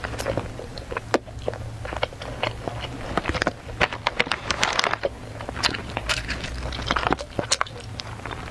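Plastic snack wrappers crinkling and rustling in a quick, irregular crackle as packages are opened and handled, mixed with close-up chewing.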